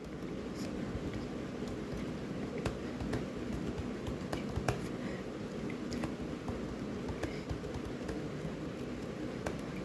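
Computer keyboard being typed on at an irregular pace, single keystrokes clicking several times a second over a low steady room hum.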